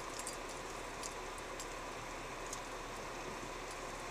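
Steady car cabin noise as the car creeps slowly along a street, with a few faint ticks.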